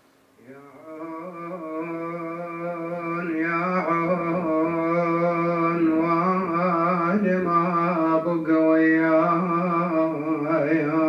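A man chanting a Husseini lament in the Iraqi style with no instrument: slow, long held notes with wavering ornaments and gliding turns, fading in over the first second.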